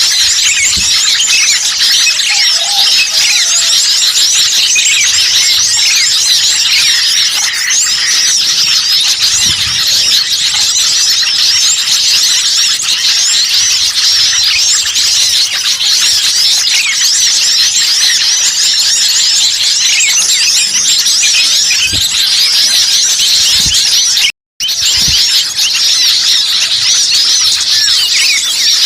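A loud, dense chorus of many small birds chirping and twittering at once, a noisy small-bird lure recording. The sound cuts out completely for a split second about 24 seconds in.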